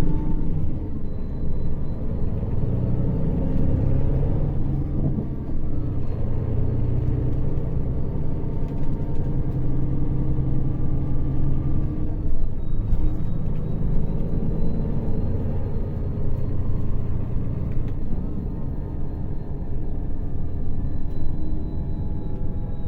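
Scania K400 coach engine running with a steady low rumble. Its pitch shifts a few times, about five seconds in and again about twelve seconds in.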